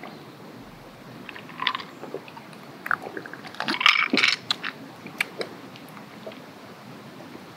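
A person sipping a drink from a plastic cup with slurping sucks and small mouth clicks. The loudest slurp comes about four seconds in.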